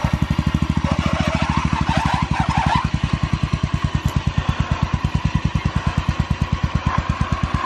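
Engine of a modified off-road lawnmower chugging at low revs under load as it crawls up a steep dirt climb, an even beat of about ten pulses a second.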